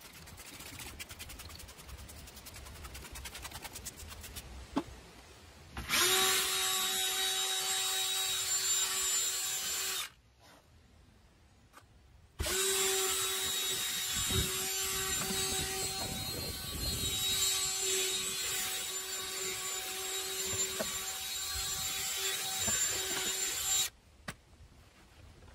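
Cordless drill spinning a round bristle scrub brush against a vinyl car door panel, running in two steady whirring bursts, the first about four seconds long, then a short pause, then about eleven seconds more before it stops.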